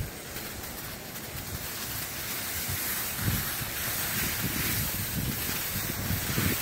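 Wind buffeting the microphone over a steady hiss, with irregular low rumbles from about three seconds in.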